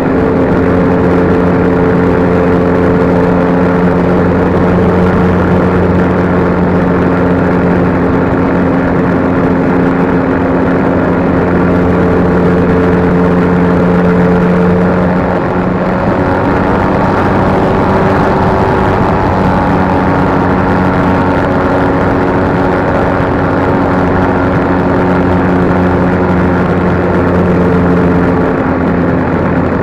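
RC plane's motor and propeller heard from a camera mounted on the plane in flight: a loud, steady drone with several pitches. The pitch shifts about halfway through with a brief dip in loudness as the throttle changes.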